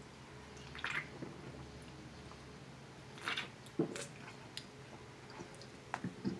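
A man drinking ginger ale from a can, with a few faint gulps and swallows. There are short, sharp mouth sounds about a second in and again around three to four seconds in.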